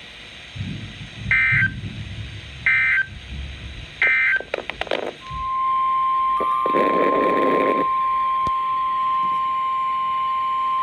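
Three short, evenly spaced Emergency Alert System digital data bursts, the end-of-message code that closes the previous warning, over radio static and crackle. About halfway through, a single steady NOAA Weather Radio alert tone near 1 kHz starts and holds, signalling that a new warning is about to be read.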